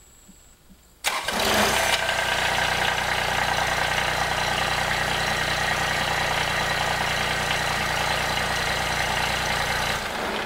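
Kubota compact tractor's diesel engine starting: it cranks and catches almost at once about a second in, then runs steadily at idle before cutting off near the end.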